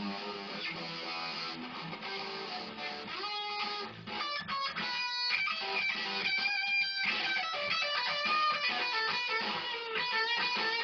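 Electric guitar played in a blues rock style with no singing: chords for the first few seconds, then single-note lead lines higher up, some notes sliding in pitch.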